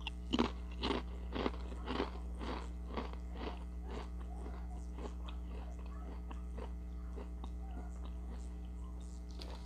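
Close-up chewing of crunchy Ritz Toasted Chips, about two crunches a second, louder over the first few seconds and then softer. A steady low hum runs underneath.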